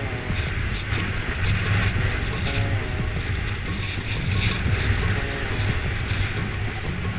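Kawasaki Versys 650 ridden at road speed: steady wind rush over the microphone with the low drone of its parallel-twin engine underneath.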